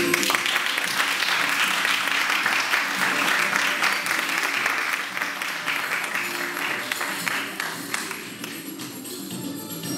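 Audience applauding after a martial-arts demonstration ends, strongest in the first few seconds and dying away over the last few.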